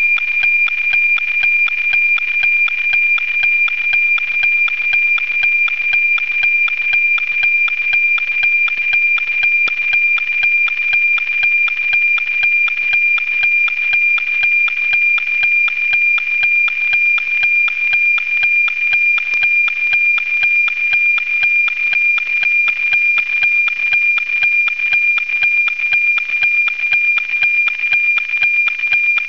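NOAA 19 weather satellite's APT image signal, received and demodulated by a software-defined radio: a high, steady whistling tone with a regular tick-tock beat about twice a second, each beat one scanned image line. The signal holds strong and steady, without fading.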